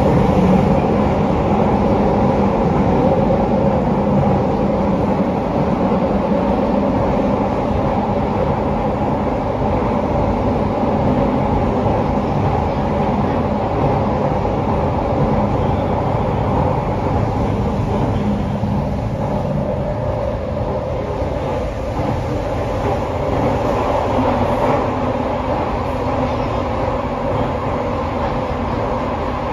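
Interior running sound of a Toei Oedo Line 12-600 series subway car, a linear-induction-motor train with a Hitachi SiC inverter, travelling through a tunnel. A steady rumble of wheels and air carries several held tones.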